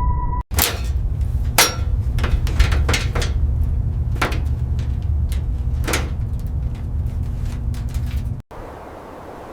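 A series of irregular hammer strikes, about a dozen, some with a short ring, over a low steady rumble. Near the end they cut off abruptly, giving way to a quieter steady hiss.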